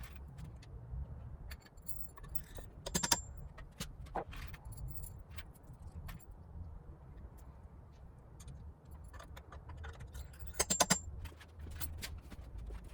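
Metal hardware and tools clinking and tapping: scattered clicks, with two bunches of ringing clinks about two seconds in and near the end, over a low steady rumble.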